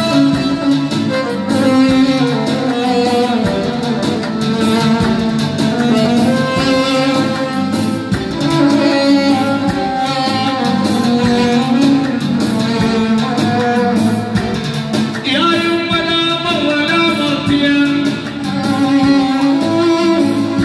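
Electronic arranger keyboard playing an instrumental melody, with a new phrase starting about fifteen seconds in.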